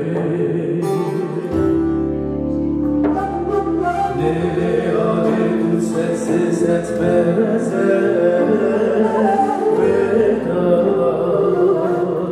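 Turkish folk song performed live: men singing over a bağlama saz and the rest of the band, with the melody bending and ornamented throughout.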